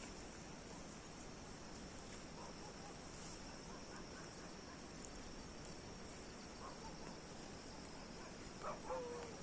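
Steady night chorus of crickets, a continuous high-pitched trill. Near the end comes a brief, louder call-like sound with a short falling tone.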